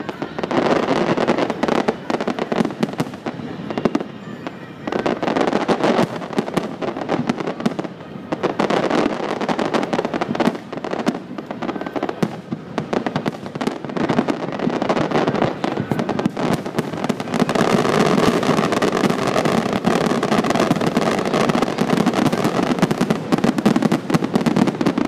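Aerial fireworks shells bursting in rapid succession with dense crackling, easing briefly twice and then building into a steady, near-continuous barrage for the last third.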